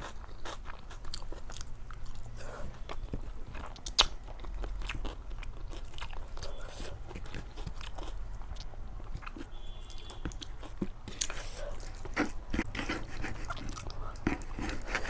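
Close-miked eating of rice and chicken curry: steady chewing, biting and wet mouth clicks, with some crunching and one sharp click about four seconds in.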